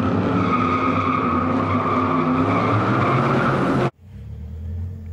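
Intro sound effect of a car burnout: an engine held at high revs while the tyres squeal, cutting off abruptly about four seconds in. A quieter low rumble follows.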